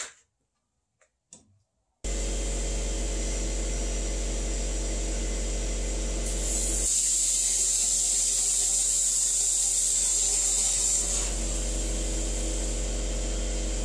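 A torch opening a hole in a stainless steel exhaust Y-pipe over a steady electrical hum, with a loud hiss from about six to eleven seconds in.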